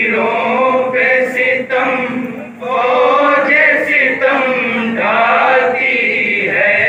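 Noha, a Shia mourning lament, chanted by male voices in long, drawn-out held notes, with short breaths between the phrases.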